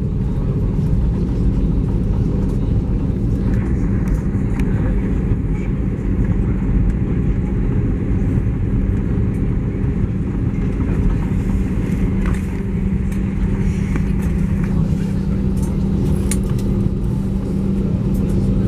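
Steady cabin noise inside an Airbus A320 rolling on the ground after landing: a low rumble with a steady engine hum, and a few faint clicks.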